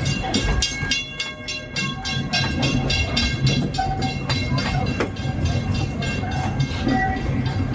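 Narrow-gauge steam train's passenger coach rolling along, with a rapid, even clatter over a steady low rumble.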